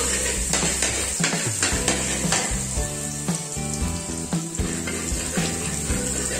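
Minced garlic sizzling in hot oil in a honeycomb-textured stainless wok, with a metal spatula stirring it and scraping and clicking against the pan at irregular moments.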